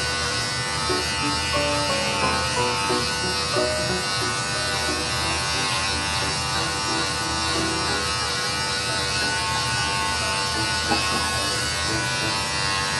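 Electric pet hair clippers running with a steady hum as they shave through a long-haired cat's coat.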